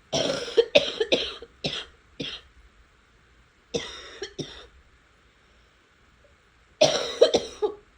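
A person coughing in three fits of several quick coughs each: about five at the start, three in the middle and three or four near the end.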